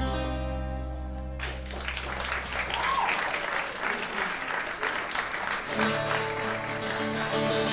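The last chord of a song rings out and fades, then the audience applauds for about four seconds. About six seconds in, the band's plucked laouto and bass start the next tune.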